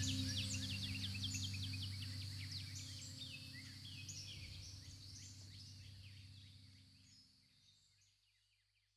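Many birds chirping in quick falling calls over a low steady drone, the whole fading out to silence about eight seconds in.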